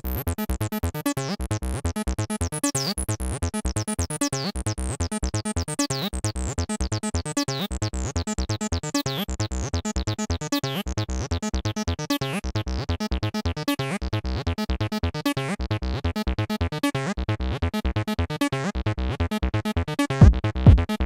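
Background music with a fast, steady beat; heavier bass thumps come in near the end.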